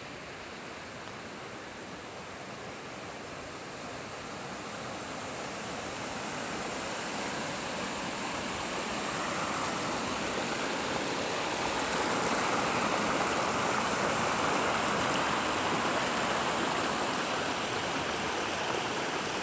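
Steady rushing of running water from a small spring-fed stream, growing louder over the first dozen seconds and then holding.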